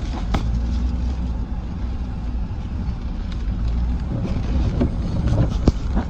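A car driving, heard from inside: a steady low engine and road rumble, with a few short knocks about half a second in and near the end.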